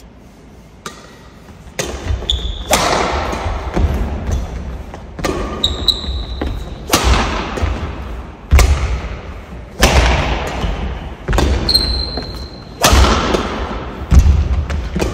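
Badminton rally in a reverberant hall: sharp racket hits on the shuttlecock about every second or so, each ringing out with echo, among footfalls thudding on the court and brief shoe squeaks.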